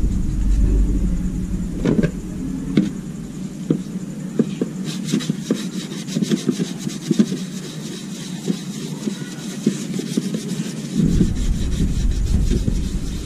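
Hand tool scraping and rubbing along the edge of a plastic frame in quick, repeated strokes, starting about five seconds in, after a low rumble and a few knocks of handling.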